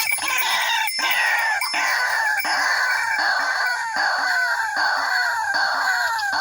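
White-breasted waterhen calling: a loud, continuous series of repeated falling notes, one phrase about every 0.8 seconds.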